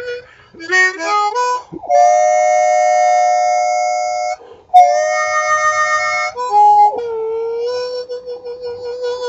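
Solo diatonic harmonica playing. A quick climbing run of short notes leads into two long held chords with a brief break between them. Near the end a note bends down and settles into a wavering, trilled tone.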